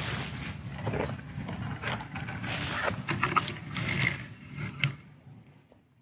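Dry grass stems rustling and scraping in irregular bursts over a low steady wind rumble, fading out near the end.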